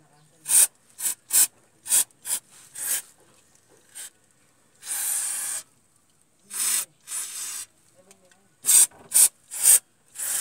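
Aerosol carb cleaner sprayed onto a clutch flywheel in a run of short bursts, with a few longer sprays, to strip off grease.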